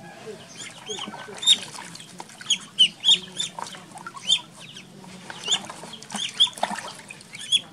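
Ducklings peeping over and over in short, high chirps, with some water splashing in the tub in the later part.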